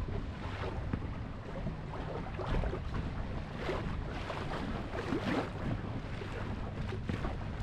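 Lake water splashing and slapping against the hull of a moving boat in irregular splashes, over a steady low rumble.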